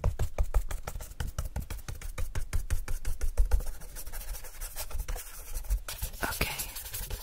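Paintbrush scratching and rubbing quickly across the paper of a spiral-bound sketchbook, close to the microphone, in a rapid run of short strokes that thins out for a while past the middle.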